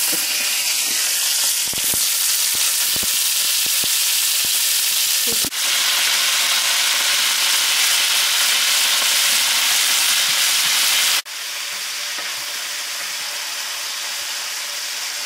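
Steak chunks sizzling loudly as they brown in hot olive oil in an enamelled cast-iron casserole, a steady frying hiss. The sizzle drops abruptly in level about eleven seconds in.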